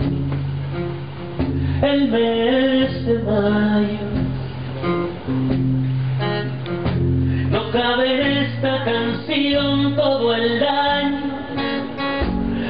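An acoustic guitar is strummed while a bowed violin plays a melody over it, in an instrumental passage of a song.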